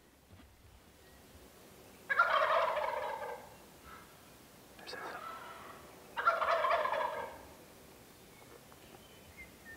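Wild turkey toms gobbling: two loud gobbles about four seconds apart, each just over a second long, with a fainter gobble between them.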